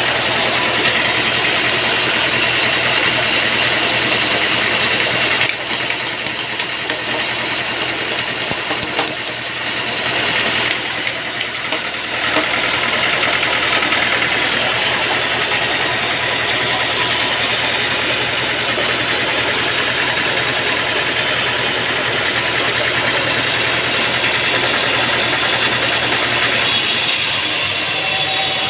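Sawmill machinery running steadily: a continuous engine-driven mechanical drone with some rattle. It eases off for several seconds about five seconds in, then picks back up.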